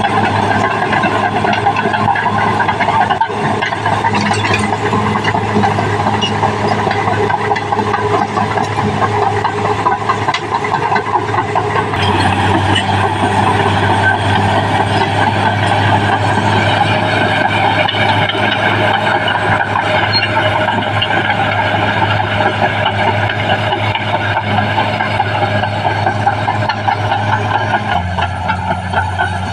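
Caterpillar D6R XL bulldozer's diesel engine running steadily at work. Its tone changes abruptly about twelve seconds in and again near the end.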